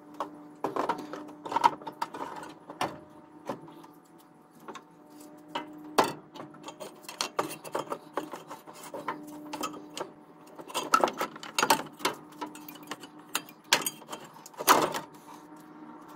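Irregular knocks, clicks and rattles of a radiator and fan shroud being fitted into an engine bay. The sharpest knocks come about a second and a half in, around six seconds, and several near the end, over a faint steady hum.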